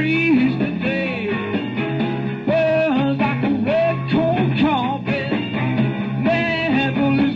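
Rock-and-roll band music with a singer, guitar and a steady bass line.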